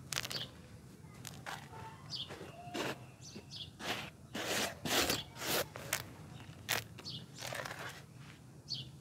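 Gritty crunching and rustling of dry crumbled clay grit being squeezed and let fall by hand, in irregular short crackles. Birds chirp faintly in the background.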